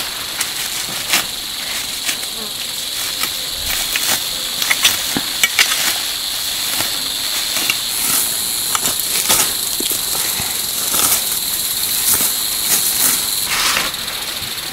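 Food sizzling in hot oil in a cooking pan: a steady high hiss with frequent small pops and crackles scattered through it.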